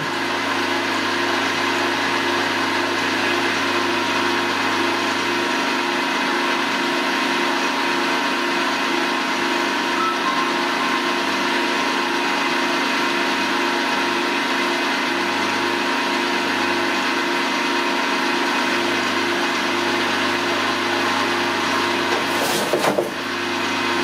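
Vertical milling machine running steadily with an even motor hum. About a second and a half before the end the end mill starts its 2 mm side cut into the disc, with a short burst of cutting noise.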